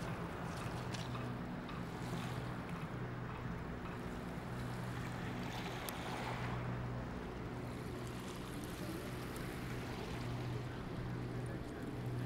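Steady low drone of a passing river boat's engine over the wash of water and some wind.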